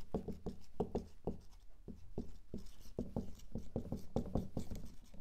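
Hand writing on a surface: an irregular run of short taps and scrapes as the lecturer writes.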